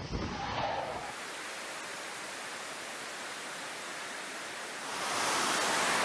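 Twin-engine Dassault Rafale fighter jet's engine noise, heard as a steady rushing hiss that grows louder about five seconds in as the jet goes to full power for a carrier catapult launch.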